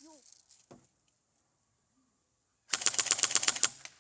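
SCAR-L airsoft electric gun firing a short full-auto burst of about a second, a fast, even rattle of roughly 13 shots a second, starting a little before the end.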